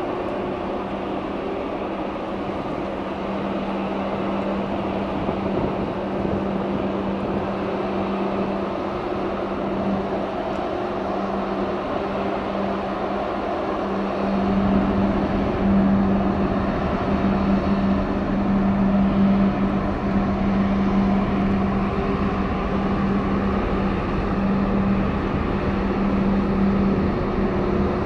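Steady machinery hum from a passing 20,000-TEU container ship, with one strong low tone over a wash of noise. About halfway through a deeper rumble joins in and the sound gets a little louder.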